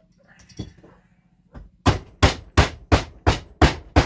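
A mallet tapping on a motorcycle engine crankcase, a steady run of sharp blows about three a second starting about halfway in, knocking the case halves apart while the case splitter pulls.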